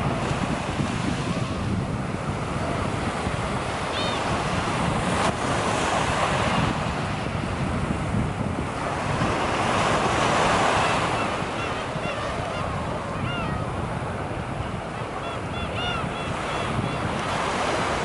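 Waves breaking and washing up a sandy beach, the surf swelling and easing, loudest about ten seconds in. Short gull calls cut through about four seconds in, and several more follow in the second half.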